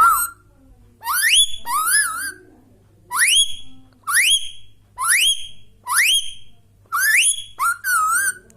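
Indian ringneck parrot whistling: a run of short whistles, roughly one a second, most sweeping steeply upward in pitch and a couple wavering up and down.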